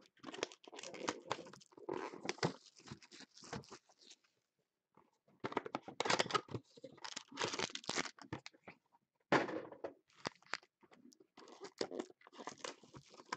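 Cardboard trading-card box being torn open and handled by hand: irregular bursts of ripping and rustling packaging, with a short pause about four seconds in.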